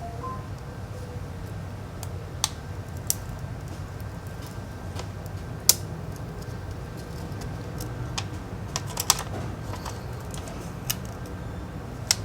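Light, irregular clicks and taps of small tools and phone parts being handled during a phone repair, about a dozen spread through the stretch, the sharpest about halfway and a quick cluster a little later, over a steady low hum.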